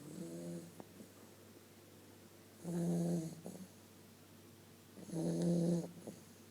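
An 8-week-old Vizsla puppy snoring in its sleep: three pitched snores about two and a half seconds apart, the first one softer.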